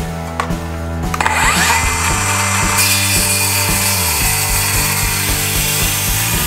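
Milwaukee cordless circular saw spinning up with a rising whine about a second in, then cutting steadily through an old wooden beam.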